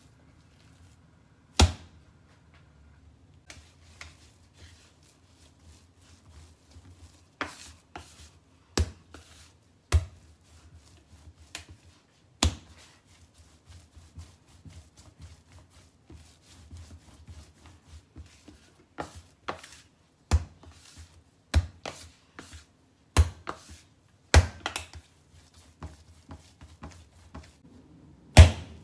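Sticky yeast bread dough being kneaded by hand on a stone countertop. About a dozen irregular slaps and thuds as it is pushed and thrown against the counter, with quieter squishing and rubbing in between.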